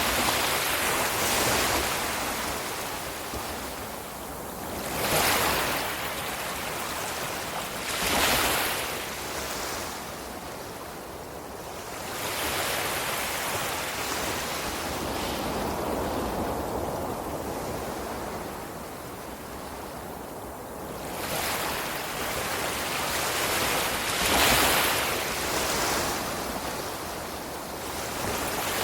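Ocean surf: a continuous wash of waves with louder breakers surging in every few seconds, a calmer stretch of softer wash in the middle.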